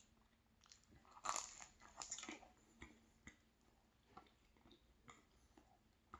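Faint close-up eating sounds of a hazelnut-spread pastry being bitten and chewed: a couple of short crunches a second or two in, then soft, scattered chewing clicks.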